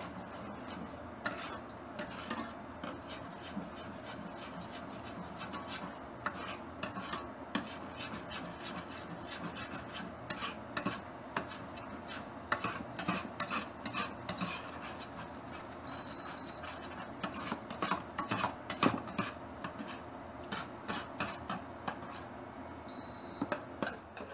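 Metal ladle scraping and clinking against a wok while stirring sauce, in many short irregular strokes that come thicker in the second half.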